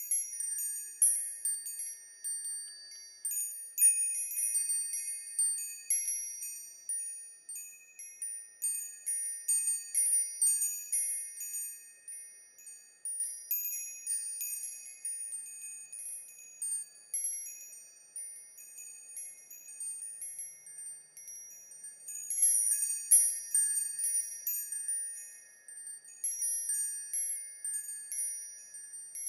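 Delicate chimes tinkling: many light, high notes struck at irregular moments, ringing and overlapping one another, with nothing low beneath them.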